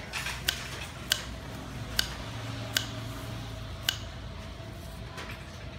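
Knife slicing a carrot on a wooden cutting board: the blade cuts through and knocks on the board about five times, each knock a sharp tick, spaced unevenly roughly a second apart.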